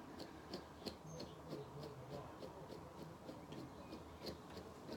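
Grooming brush stroked quickly through a toy poodle's curly coat in line brushing: faint, short brushing ticks at about three strokes a second.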